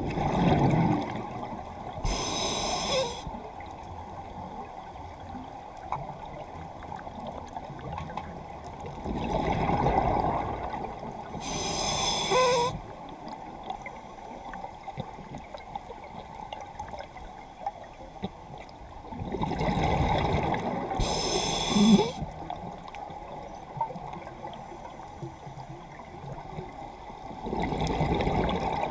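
Scuba diver breathing through a regulator underwater: exhaled bubbles rumble out and a short regulator hiss follows, three breaths about ten seconds apart, with quieter water noise between.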